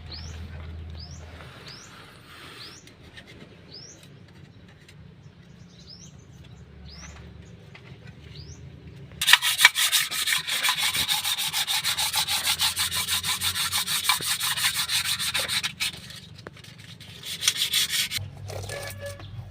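Abrasive rubbing on engine parts: loud, rapid scrubbing strokes start about halfway through and run for about six seconds, with quieter scraping and faint chirps before them.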